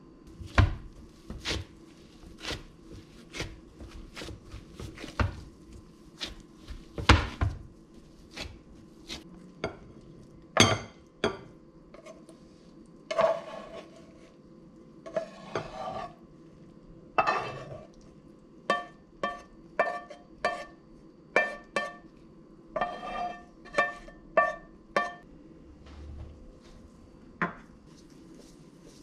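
Cookware clatter: a spatula tapping and scraping against a frying pan and bowl as food is scooped out, a long run of sharp taps. In the second half many of the strikes ring like metal.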